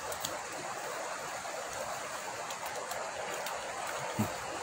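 Steady rush of flowing river water, with a few faint ticks and one soft knock near the end.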